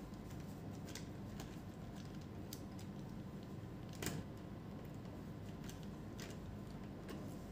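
Faint scattered metallic clicks and ticks of a small precision screwdriver and needle-nose pliers working at the pivot of an Acer TravelMate P214-53 laptop's metal display hinge, with one sharper click about four seconds in.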